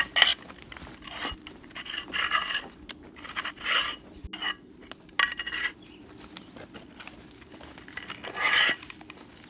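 Old ceramic floor tiles clinking and scraping against one another as they are picked up from a pile and tossed aside, in about six separate clatters.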